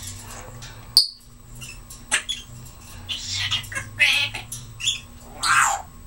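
Timneh African grey parrot giving about four short, noisy squawks in the second half, after a couple of sharp clicks early on.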